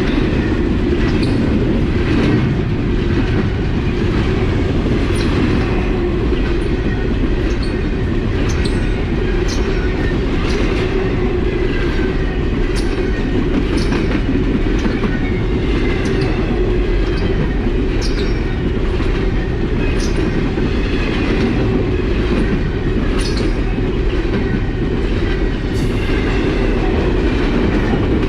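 Long freight train of empty trash cars rolling steadily past, wheels rumbling and clicking over rail joints with faint wheel squeal.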